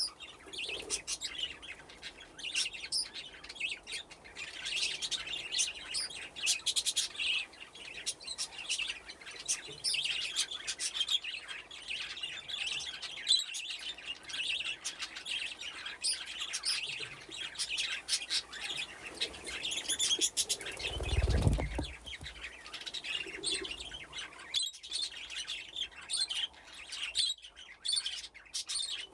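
A flock of budgerigars chattering and chirping continuously, many birds at once. There is a brief low rumble about two-thirds of the way through.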